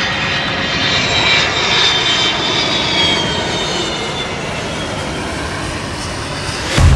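Airplane flying past, a rushing engine noise with a high whine that falls in pitch about one to three seconds in.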